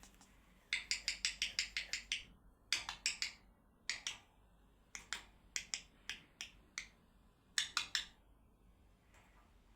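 Runs of sharp, dry clicks: a fast burst of about ten near the start, then scattered single clicks and small clusters, with a last quick cluster near the end.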